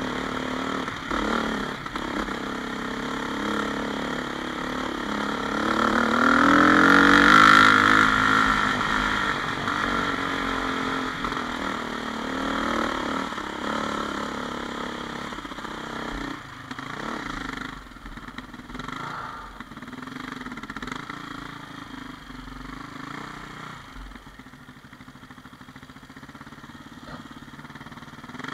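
2000 KTM 400 EXC's single-cylinder four-stroke engine running on a gravel trail, revving up to its loudest about seven seconds in, then easing off to a quieter, lower run through the second half.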